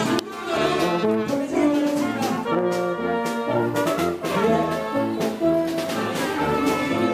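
Brass marching band playing a tune as it passes close by, several brass horns sounding together in changing, held notes.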